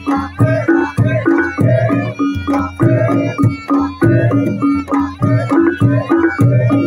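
Traditional reog Ponorogo music: hand drums beating a quick, even rhythm under a high, wavering melody.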